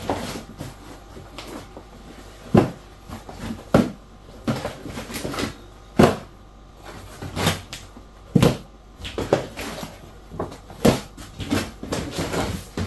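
Plastic shopping bag and packs of tissues being handled: irregular crinkles and knocks every second or so, with short pauses between them.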